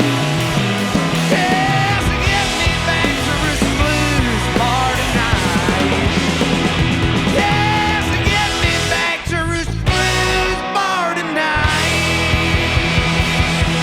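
Rock band playing live: electric guitar, bass guitar and drums, with bending, wavering melodic lines over the top and an even drum beat in the last couple of seconds.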